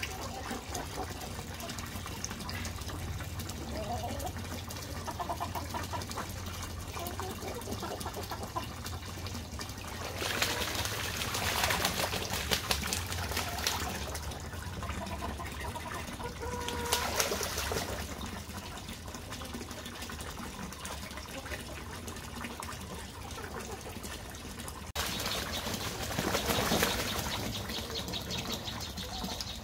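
Water jetting from a hose pipe into a shallow cement tank, with two domestic geese splashing as they bathe, in louder bursts about ten seconds in and again near the end. A brief goose call sounds about halfway through.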